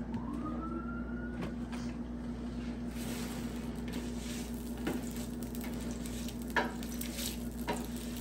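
Cooking oil sizzling as it is spread over the hot plate of a Blackstone 22-inch E-Series electric griddle, the hiss growing brighter about three seconds in. A few light taps and a short rising whine near the start sit over a steady low hum.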